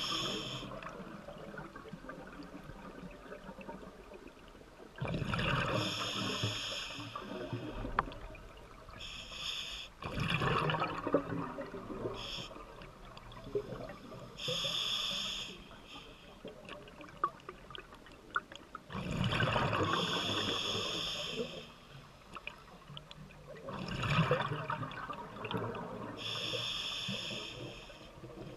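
Scuba regulator breathing underwater: hissing inhalations alternating with bubbling exhalations, one breath every few seconds.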